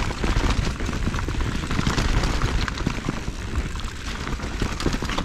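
Mountain bike descending a steep, rough dirt trail: a continuous clatter of the tyres over dirt and roots and the bike rattling, with a steady low rumble underneath.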